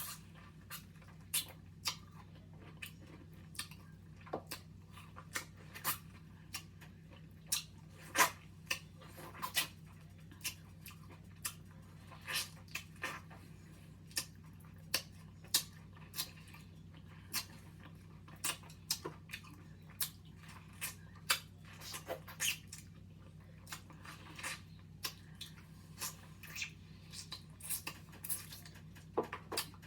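Close-up mouth sounds of someone eating a mango: irregular short bites, sucks and lip smacks, about one or two a second, over a steady low hum.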